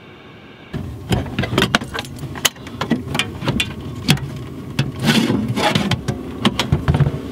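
Clunks, knocks and rattles of a Land Rover Defender's driver's-side seat box being opened: the seat frame handled and the under-seat locker's cover lifted, over a steady low hum.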